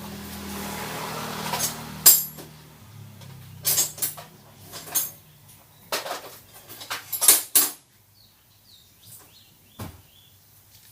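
Scattered clicks and knocks of small hard parts and a tool being handled while working on a motorcycle speedometer's gauge assembly. A low steady hum fades out about three seconds in.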